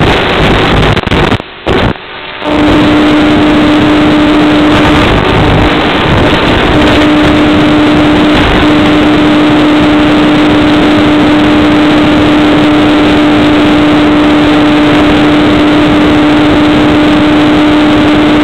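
Onboard sound of an electric-powered FPV model plane in cruising flight: a loud, steady rush of wind and propeller noise with a steady motor hum. The sound cuts out briefly twice about two seconds in.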